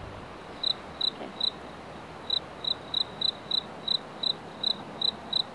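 A cricket chirping: short, high, clear chirps at about three a second, with a pause of about a second near two seconds in.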